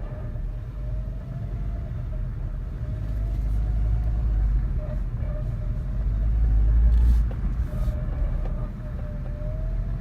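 Suzuki Swift Sport's CVT transmission making an abnormal whine, a thin tone that wavers slightly in pitch over the car's low rumble. The rumble swells about four seconds in and is loudest around seven seconds.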